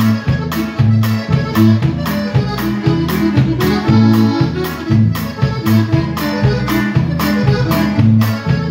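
Live band playing an instrumental polka: accordion leading over guitar, drums and an oom-pah bass line, on a quick steady two-beat.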